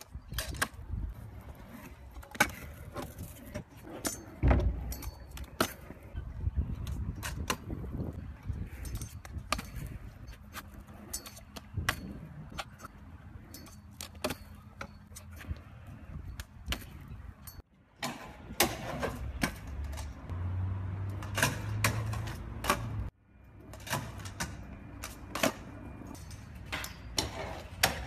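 Stunt scooter wheels rolling on concrete, with sharp clacks and knocks as the wheels and deck hit the ground and ledges on trick landings. The sound cuts off suddenly twice as one clip gives way to the next.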